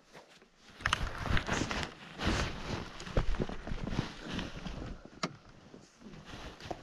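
Wind buffeting the microphone in irregular gusts over the low noise of snowmobiles moving slowly along a packed snow trail.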